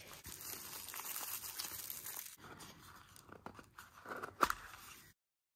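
Packaging crinkling and rustling under hands as a small wrapped package is handled and opened, densest in the first two seconds, then sparser with a few small clicks and a sharper tap about four seconds in. It cuts off abruptly near the end.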